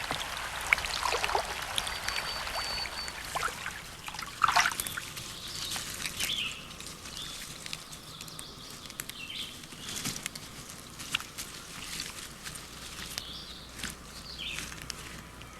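Wilderness ambience of water dripping and trickling, with irregular small drips and splashes and a few short bird chirps.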